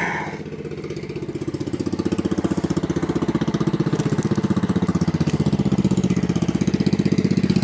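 Small single-cylinder engine of a riding lawn mower running at low throttle with an even, rapid firing pulse, getting louder over the first couple of seconds and then holding steady.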